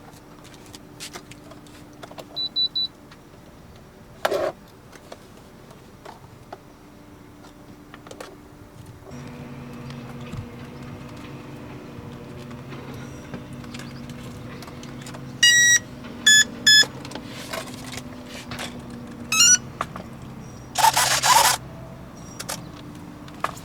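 Short electronic beeps from a radio-control transmitter being switched on and set up: a few quick high beeps, then a cluster of sharp beeps, a quick rising chirp and handling clicks. A low steady hum runs underneath from partway through, and a brief rustling burst comes near the end.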